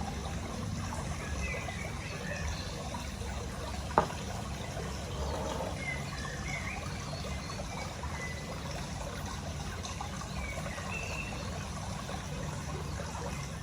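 Water trickling steadily, with a few faint high chirps and a single sharp click about four seconds in.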